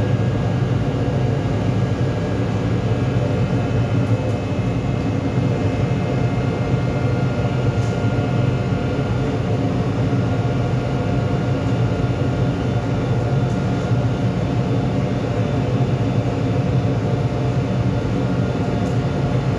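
Steady, loud low drone of a ship's running machinery, with a few faint constant hum tones above it.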